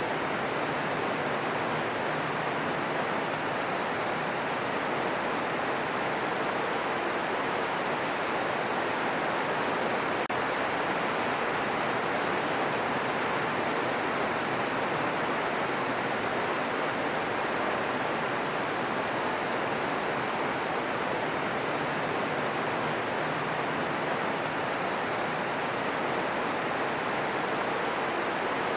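Steady green noise: a constant, even hiss strongest in the middle range, with no changes or separate sounds.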